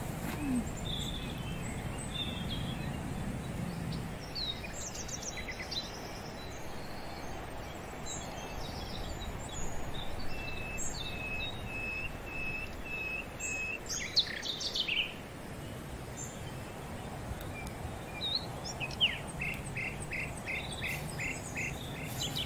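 Wild birds calling over a steady outdoor hiss: scattered quick high chirps, and twice a run of about seven short, evenly spaced whistled notes at one pitch.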